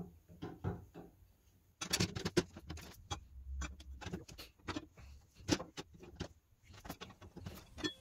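Aluminium triangle plates clicking, tapping and clinking against the steel triangles of a telescope mirror cell and the wooden bench as they are handled and slotted into place. The taps are irregular and quick, sparse at first and busier from about two seconds in.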